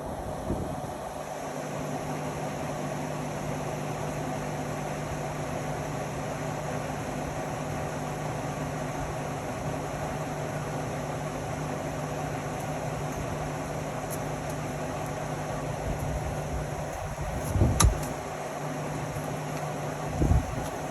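Indesit Innex XWA 81252 front-loading washing machine running with a steady motor hum and a constant low tone. Near the end there are two short low thumps a few seconds apart.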